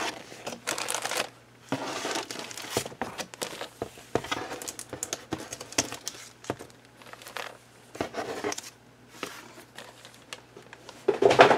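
Clear plastic polybags holding plastic model kit sprues crinkling and rustling in irregular bursts as they are handled and shifted, with a louder burst near the end.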